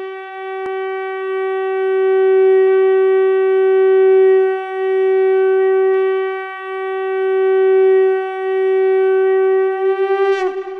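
Conch shell (shankha) blown in one long, steady note that swells and eases several times. Near the end the note wavers, dips in pitch and falls away.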